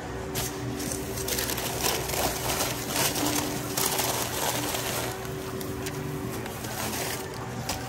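Paper sandwich wrap crinkling and rustling in irregular bursts as a sub is rolled up in it, over a steady faint hum.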